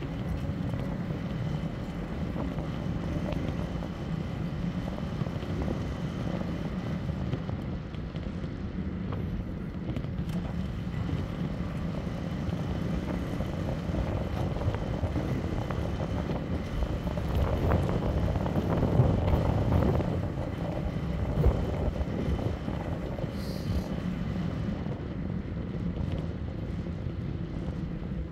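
Steady low rumble of riding an e-bike, from tyre and wind noise, growing louder for a few seconds about two-thirds of the way through.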